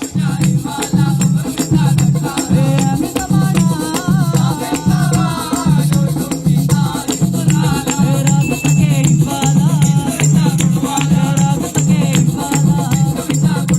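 Music with a steady, evenly repeating low beat, a shaker-like rattle and a melody line running over it.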